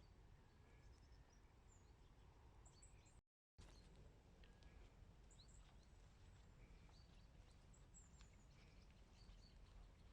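Faint outdoor ambience: a low steady rumble with scattered short, high chirps of distant birds. The sound cuts out completely for a moment about three seconds in.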